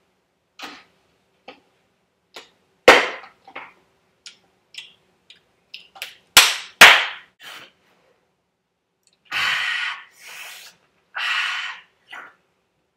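A series of sharp smacks, the loudest one about three seconds in and two more close together about six and a half seconds in. Two half-second hissing bursts follow near ten and eleven seconds.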